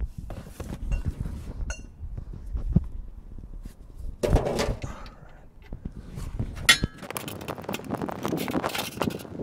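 Metal hand tools clinking and knocking at a car's oil drain bolt, a 24 mm socket being worked on the just-loosened bolt, with a ringing metal clink about two-thirds of the way in and a rapid run of clicking near the end.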